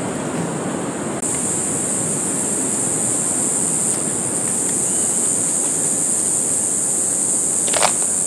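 Surf washing on the beach and wind on the microphone, a steady even rush. About a second in, a steady high-pitched insect buzz starts up over it. A single short sharp sound comes near the end.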